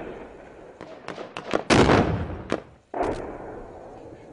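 Gunfire in a firefight. Several sharp shots come about a second in, then a loud blast with a long echoing tail, one more shot, and after an abrupt break another loud report that fades slowly.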